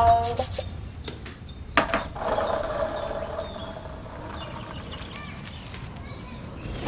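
A music phrase ends within the first half second, leaving quiet outdoor ambience: a low, steady background with a sharp click about two seconds in.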